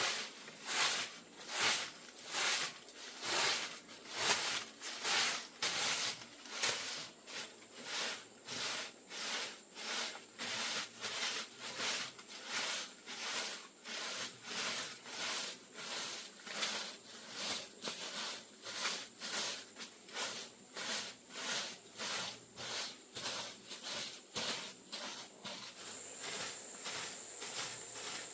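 Rhythmic rasping strokes, about two a second, of something being rubbed or scraped back and forth by hand; a faint high steady whine joins near the end.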